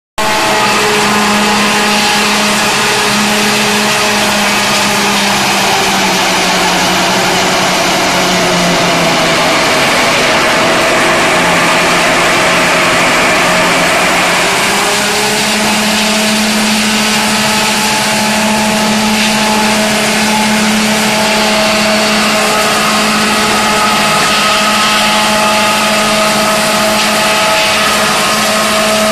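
MXJ216 wood sawdust machine, driven by a large electric motor, crushing wood pieces into sawdust: a loud, steady machine hum over a dense grinding noise. The hum drops in pitch for several seconds in the middle, then comes back up.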